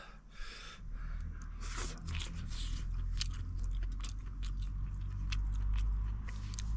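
Close-up mouth sounds of a man chewing a mouthful of rice and pork, with repeated wet smacking clicks. A low steady rumble runs underneath from about a second in.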